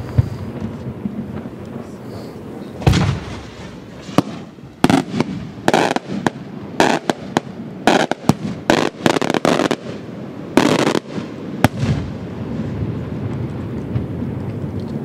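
Beraq aerial firework shells bursting: a dense, irregular run of sharp bangs, some with a short ringing tail, about three seconds in until about twelve seconds in.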